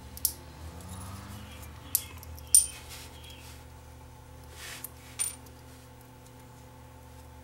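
A small screwdriver's tip clicking against the metal shield can on a small circuit board as it is pried at: about five sharp metallic clicks with a brief ring, the loudest about two and a half seconds in.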